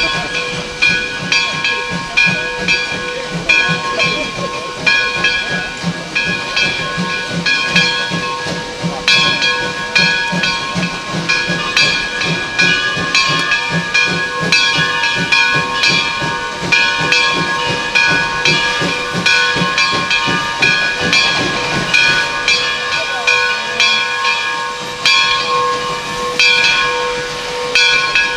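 Steam locomotive whistles, from a lineup of a 2-8-2T tank engine, a three-truck Climax and a three-truck Heisler, blowing long and steady with several tones sounding together, over steam hiss that pulses about once a second.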